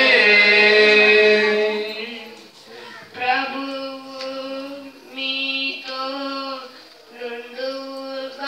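Worship singing: a long held note fades out about two seconds in, then a voice sings short phrases on steady held notes, with brief pauses between them.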